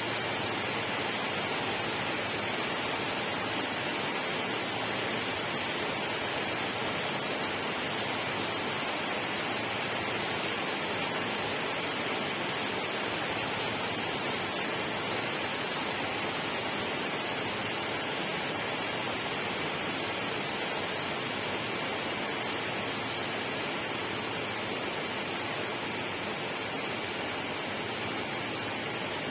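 Steady, unbroken rush of water with no distinct splashes or changes.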